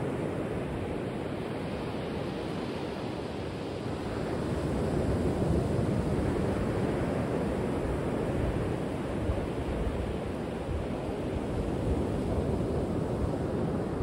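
Ocean surf breaking on the reef offshore: a steady rush of waves that swells louder about four seconds in and then eases back.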